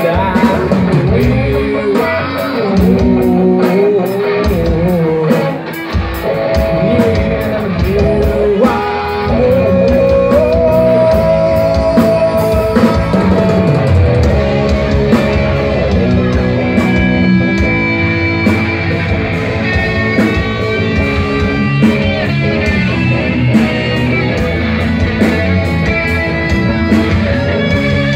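Live rock band playing an instrumental passage: electric guitars carrying a bending, held lead melody over bass and drum kit.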